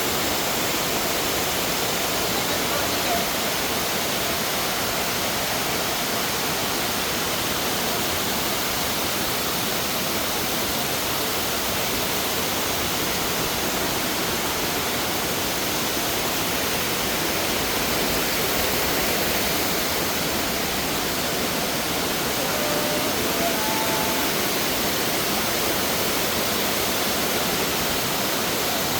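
Waterfall: a steady rush of falling water with an even level.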